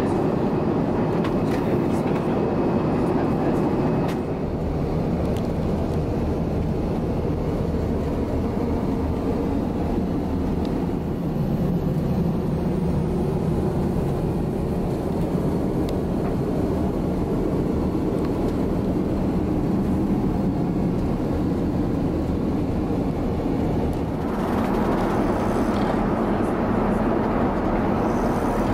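Steady cabin noise of an Airbus A350-900 in flight, an even rush of air and engines. It turns duller about four seconds in and brighter again near the end.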